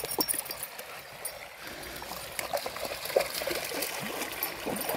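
Shallow stream running over stones, trickling and gurgling at the water's edge.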